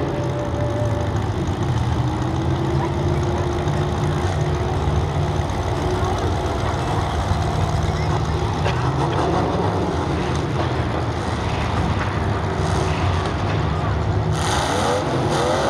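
Demolition derby cars' engines running in a steady low rumble, with engines revving in rising and falling glides near the end.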